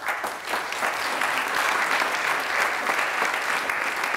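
Audience applauding, the clapping starting all at once and holding steady.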